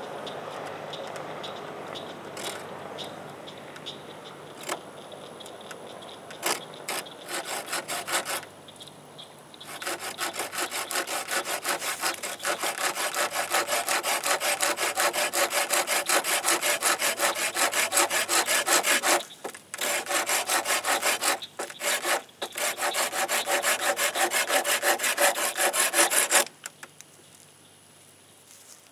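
Hand saw cutting through a hickory hatchet handle. It starts with slow, light strokes, then after a short pause saws fast and hard for about sixteen seconds with two brief breaks, stopping a couple of seconds before the end.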